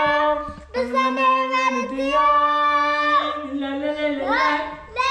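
A child singing a slow tune in a high voice, holding long notes that slide between pitches, with a short break about half a second in and a rising slide near the end.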